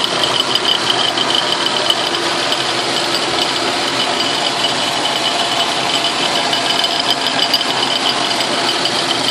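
Logan metal lathe running as a mill, its end mill cutting a metal tool-post nut block fed by the cross slide: a steady, loud machining noise with a rattle and high, slightly pulsing tones from the cut.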